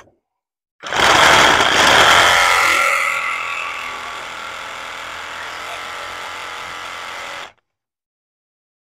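A handheld power tool runs for about seven seconds: loudest in its first two seconds, then settling to a steady whine, and it stops abruptly.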